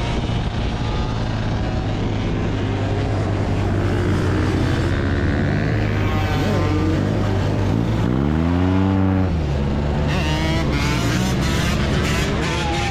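Motorbike engines running, with one revved up and let back down about eight seconds in; several engines rev unevenly near the end.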